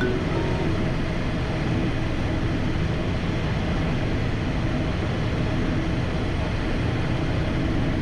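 Steady, even jet noise inside the cockpit of a Cessna Citation XLS.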